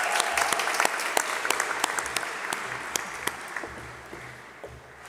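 Audience applauding, the clapping thinning out and fading away toward the end.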